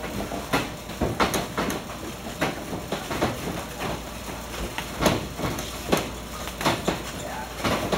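Savate bout: irregular thuds and slaps of gloved punches and shod kicks landing, with fighters' shoes stepping on the ring canvas.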